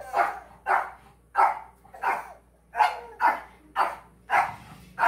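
Small long-haired dog barking repeatedly, a quick series of sharp barks about twice a second.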